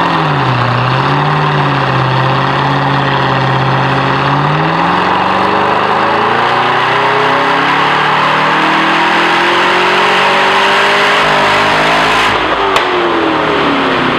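Supercharged 6.2-litre LSA V8 of a 2013 Cadillac CTS-V wagon on a chassis dyno, through its stock Corsa-muffler exhaust: a quick blip of the throttle, a few seconds at steady revs, then a full-throttle dyno pull with the engine note climbing steadily for about eight seconds. Near the end the throttle closes and the revs fall away.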